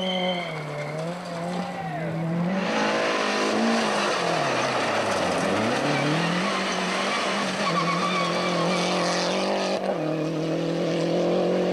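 Rally car engines revving hard on a gravel stage, the engine note rising and falling with throttle and gear changes, with a deep drop in pitch and climb back about halfway through, over the hiss of tyres and sprayed gravel. The sound changes abruptly twice as it jumps from one car to the next.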